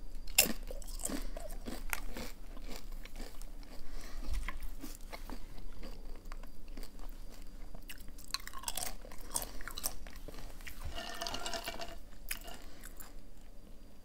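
A person biting into and chewing crunchy chips close to the microphone, a continuous run of crisp crunches.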